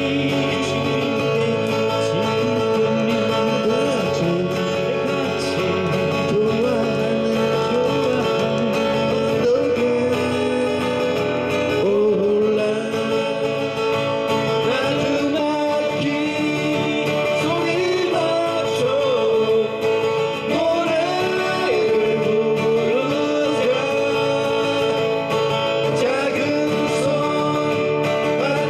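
Live acoustic folk-pop song: two acoustic guitars strummed while male voices sing the melody.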